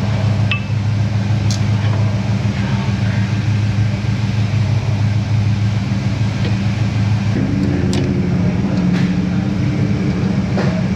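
A steady, loud low machine hum, its pitch shifting upward about seven and a half seconds in, with a few light metallic clicks and clinks over it.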